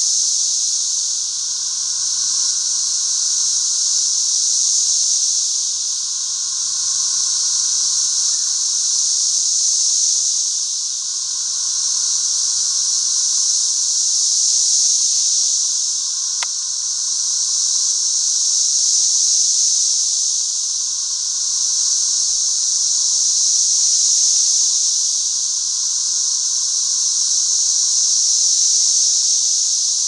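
Dense chorus of 13-year periodical cicadas: a loud, steady high-pitched hiss that swells and fades every few seconds, with a weaker lower whirring underneath.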